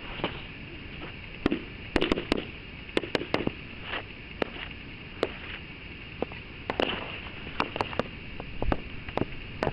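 Sharp clacks and knocks at irregular intervals, sometimes two or three within half a second, over a steady hiss.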